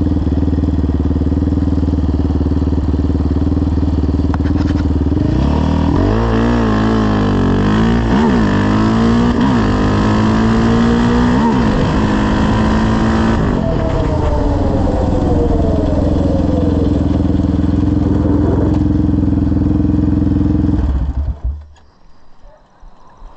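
Yamaha Raptor 700R quad's single-cylinder four-stroke engine through a full CT Racing exhaust, under way: running steadily, then revving up and down repeatedly for several seconds, easing off in a long falling pitch, and running steady again before the sound cuts off near the end.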